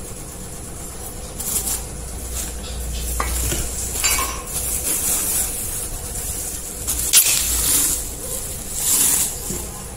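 Plastic wrapping crinkling in irregular bursts while the metal parts of an angle-grinder cutting stand are handled, with a few sharp clinks and knocks of metal.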